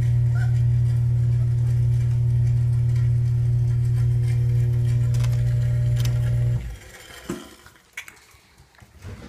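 Steady electric motor hum that cuts off abruptly about two-thirds of the way through. After it stops there are faint scuffles and clicks from puppies moving about in the tub.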